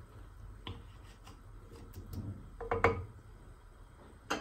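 Light clicks and knocks of kitchen utensils being handled, the loudest a quick cluster of knocks about three seconds in and a sharp knock near the end.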